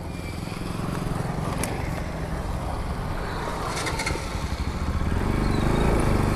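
Motor vehicle engine running with a steady low rumble, getting a little louder about five seconds in.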